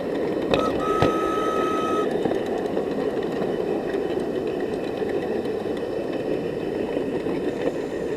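Fishing Creek's water rushing over and around rocks: a steady, loud rush. A brief high, steady whistle sounds about a second in.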